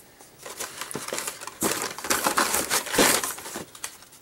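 Plastic blister packs on cardboard toy-car cards crinkling and clicking against each other and the cardboard case as a stack of cards is handled and pulled out. The crackling is light at first and loudest in the middle, then fades near the end.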